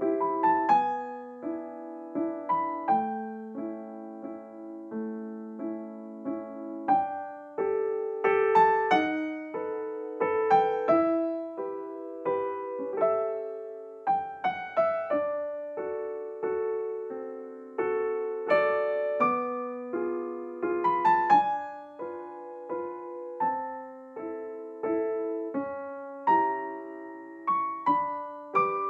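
Background music: a piano piece, notes and chords struck one after another and left to fade.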